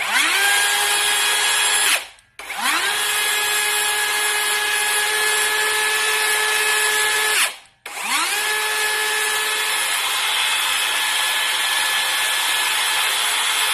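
Cordless electric circular saw running free off load three times, run by the freshly repaired battery pack: each time the motor whines up quickly to full speed, holds a steady whine, then cuts off. The first run is short and the next two last several seconds; the saw running at full speed shows the repaired pack delivers power.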